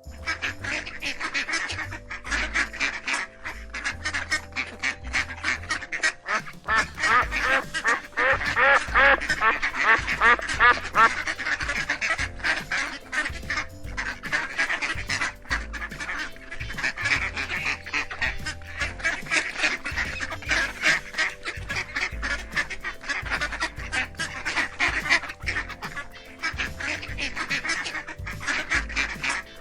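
A flock of ducks quacking continuously, many calls overlapping in rapid succession, loudest about a third of the way in.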